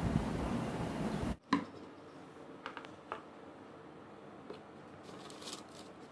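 Steady rustling hiss of thin cloth being handled close by, cutting off abruptly about a second and a half in. After that come quieter, scattered light rustles and taps of paper being handled.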